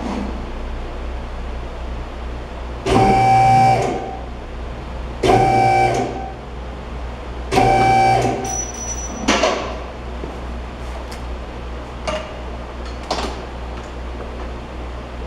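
Car lift's electric pump motor run in three short bursts of about a second each, raising the car off its engine and transmission assembly. A few light knocks and ticks follow.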